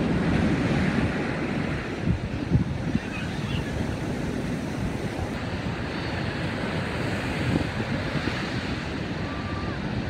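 Wind buffeting the microphone in uneven gusts over the wash of breaking ocean surf.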